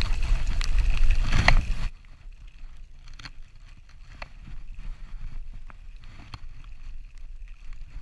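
Wind buffeting the microphone over tyre and road noise from a Brompton folding bicycle riding a wet lane. The noise drops sharply about two seconds in, leaving a quieter rushing with scattered light clicks.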